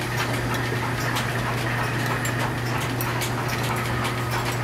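Line-shaft drive running: jack shaft pulleys turning with loosely tensioned flat belts, a steady low hum with faint, irregular light ticking.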